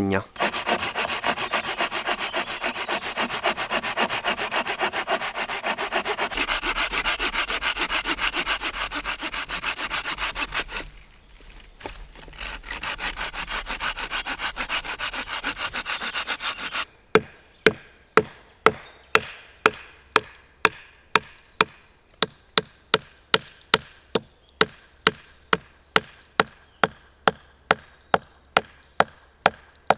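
A branch being sawn through with rapid back-and-forth strokes. There is a short pause in the middle, and the strokes are lighter after it. Then a knife is batoned into an upright stick, with sharp wooden knocks about two a second as a wooden baton strikes the blade's spine to split the wood.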